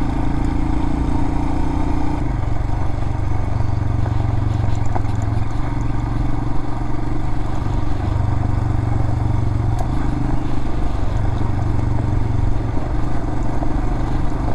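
Adventure motorcycle engine running steadily while riding along a gravel road, with small ticks of loose stones under the tyres.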